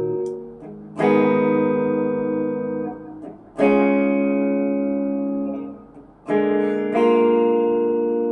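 Tokai Love Rock LS214 electric guitar strummed, four chords each left to ring out and fade: about a second in, a little past three and a half seconds, then two close together near six and seven seconds.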